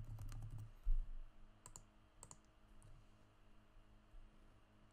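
Computer keyboard keystrokes clicking as a short word is typed, with a dull thump about a second in; the clicks thin out after about halfway.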